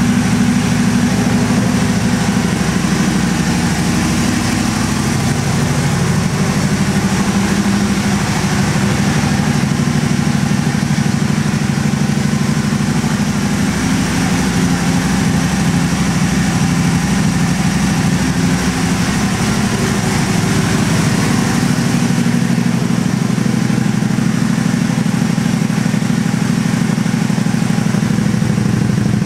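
Aprilia RST1000 Futura's 60° V-twin idling steadily through a pair of BEF slip-on exhaust cans, the sound reflecting in a closed garage.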